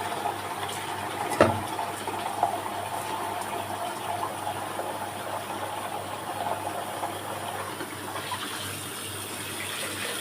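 Water rushing steadily, with one sharp knock about a second and a half in.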